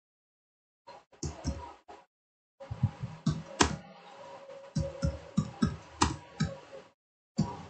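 Typing on a computer keyboard: keystrokes come in quick, irregular runs with short silent gaps between them, over a faint steady hum.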